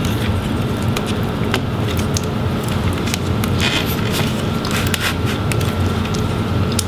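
Light, scattered clicks and taps of small laptop parts and tools being handled, over a steady low background rumble.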